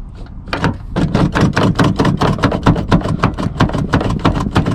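Quick, rhythmic rubbing strokes, several a second, starting about half a second in: excess silicone grease being wiped off a car's interior door handle.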